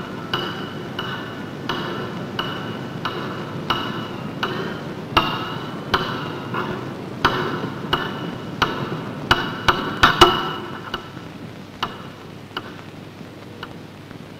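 Footsteps on a hard hallway floor, about one and a half steps a second, growing louder until about two-thirds through and then fading away. They are heard through a worn 16 mm optical soundtrack.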